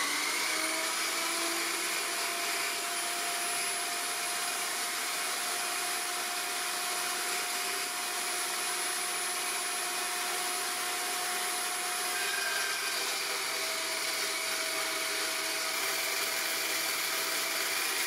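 Dry-cut metal chop saw with a 72-tooth carbide-tipped blade spinning up, its whine rising at the start, then running steadily while it cuts through a solid round metal bar, a level whine over a bright hiss as it slices off a disc.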